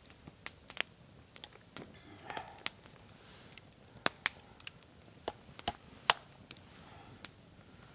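A short green stick being split lengthwise with a knife: an irregular run of sharp cracks and clicks as the wood gives along the split.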